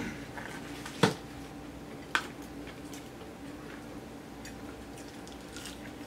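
Quiet eating sounds as fried chicken and biscuits are chewed and handled at a table, with two sharp clicks about a second apart, roughly one and two seconds in.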